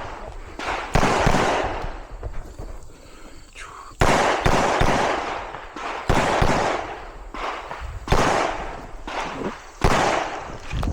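Pistol fire during a timed IDPA stage: sharp shots in several separate strings, each ringing and echoing off as it fades, with short pauses between strings as the shooter moves and engages from cover.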